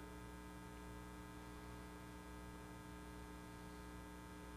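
Faint, steady electrical mains hum, made of several steady tones together, with no other sound over it.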